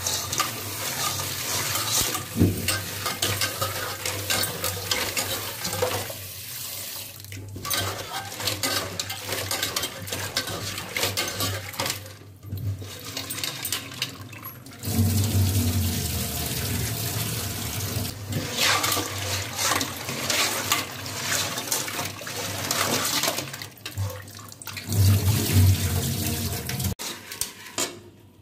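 Kitchen tap running into an aluminium pot of cut raw crab pieces in a steel sink while hands swish the crab pieces about in the water. The flow breaks off briefly about three times.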